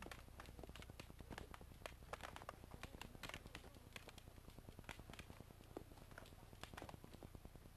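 Faint, irregular clacks and knocks of wooden fighting sticks striking during a stick fight, several a second, over a steady low hum.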